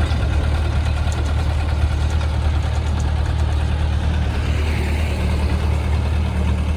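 Engine of a Hyundai machine idling steadily, a deep even hum with no change in speed.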